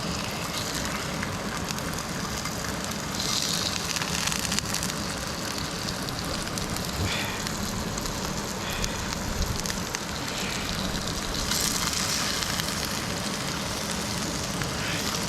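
Goby fish and onion rings sizzling in hot oil in a frying pan, a steady hiss that swells briefly about three seconds in and again near the twelve-second mark, with rain falling alongside.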